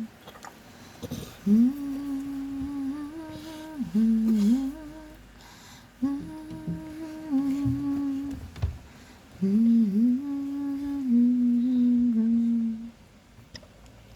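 A woman humming a tune in three phrases, holding notes and sliding between them.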